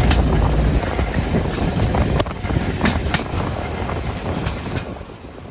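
Passenger train rolling along the track, heard from aboard: a steady rumble of running gear with sharp, irregular clicks of the wheels over rail joints. The sound fades somewhat near the end.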